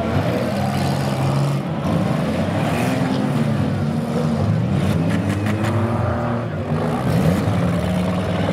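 Several demolition derby cars' engines revving and running at once, their pitches rising and falling against each other, with a quick run of sharp knocks about five seconds in.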